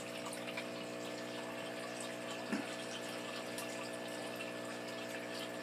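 Steady hum of the aquaponics system's water pump, with water running and trickling through the system.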